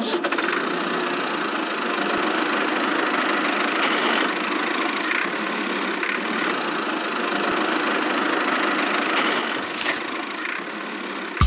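A small engine running steadily at an even speed with a fast, fine rattle.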